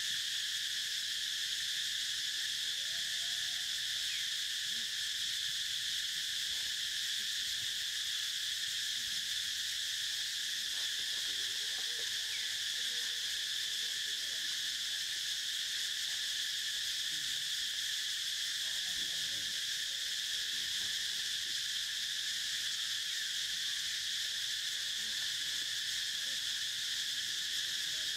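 A steady, high-pitched insect chorus drones without a break, with a few faint short calls beneath it.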